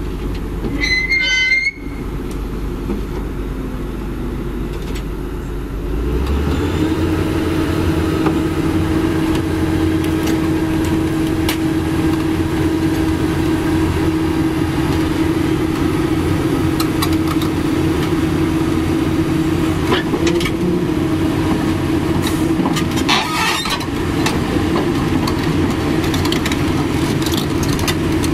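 Doosan DX225LCA crawler excavator's diesel engine running. About six seconds in it steps up to a fuller, steady running with a constant hum as the machine tracks down the steel ramps off the truck bed, with a few sharp clanks. A brief high squeal comes about a second in.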